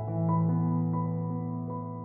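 Soft new-age background music: held low notes with a few higher notes coming in over them.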